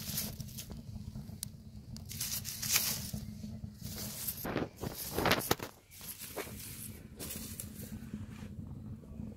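Dry straw burning in the fire opening of a clay tandoor, crackling irregularly, with the stalks rustling as they are pushed into the flames; the loudest crackles come about halfway through.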